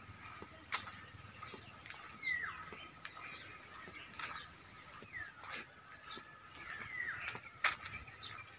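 Rural outdoor ambience: a steady high insect drone that cuts off about five seconds in, with repeated short falling bird calls and a few faint clicks.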